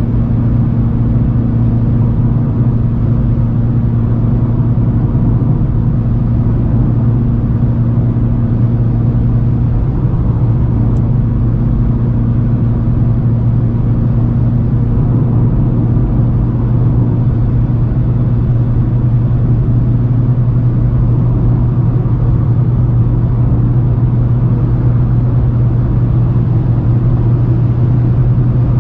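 Fiat Strada's 1.4-litre four-cylinder engine running steadily at highway cruise, heard from inside the cabin as a constant low drone mixed with tyre and road noise.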